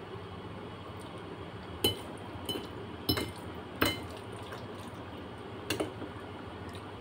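Metal fork and spoon clinking as pasta is twirled and eaten from a plate: about five sharp clinks spread over a few seconds, with quiet eating noises between them.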